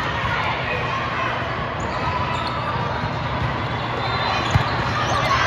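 Many voices talking at once in a large, echoing hall, with a single sharp smack of a volleyball being played about four and a half seconds in.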